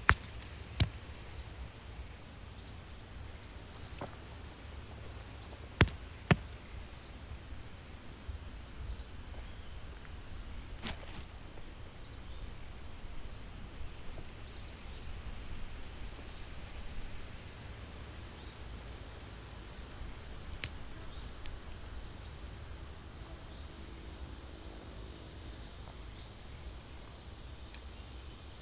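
A high, short, rising chirp repeated about once every second or so, a small animal calling, over a low steady background. A few sharp clicks stand out, the loudest a pair about six seconds in.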